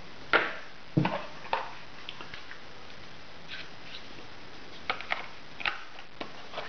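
Scattered light clicks and knocks of hands handling laptop parts and memory modules: three in the first second and a half, then a few more about five to six seconds in.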